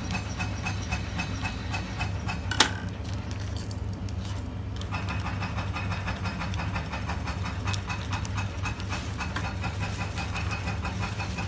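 Water boiling in an electric kettle: a steady hum under a rapid, even bubbling crackle, with one sharp click about two and a half seconds in.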